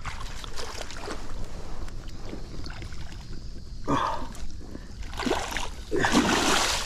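Water sloshing and splashing in a shallow stream, with a short splash about four seconds in and a longer, louder splash near the end.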